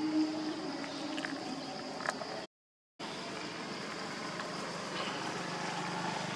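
Steady outdoor background noise with a faint hum of distant vehicles, dropping out to silence for about half a second roughly two and a half seconds in.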